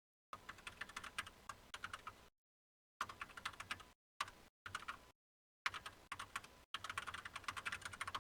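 Typing on a computer keyboard: quick runs of key clicks in several stretches, each starting and stopping abruptly, with dead silence between.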